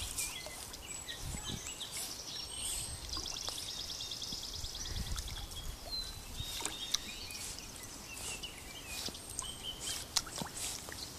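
Wild birds chirping, with one rapid trill about three seconds in, over a low outdoor rumble. Soft water sounds come from a Jack Russell terrier paddling.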